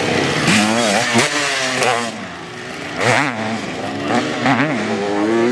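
Dirt bike engines revving, the pitch rising and falling several times as the throttle is opened and closed.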